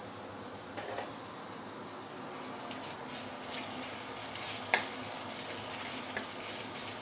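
Julienned ginger sizzling steadily in shallow hot oil in a wok, getting a little louder as it is stirred with a wooden spatula. One sharp tap of the spatula against the wok about two-thirds of the way through.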